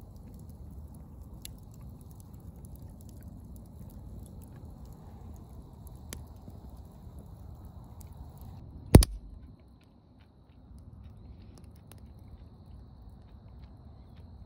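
Wood fire burning in an open fire pit: a low steady rumble with sparse crackles and pops. One loud sharp knock about nine seconds in.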